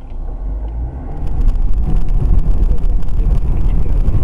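Car driving, heard from inside the cabin through a dashcam microphone: a steady low rumble of engine and road noise that jumps louder and harsher about a second in.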